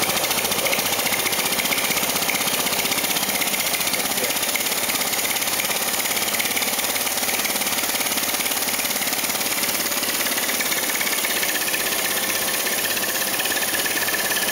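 Clear-acrylic single-cylinder compressed-air engine running steadily on shop air: a rapid, even chatter of exhaust puffs over a continuous hiss of escaping air.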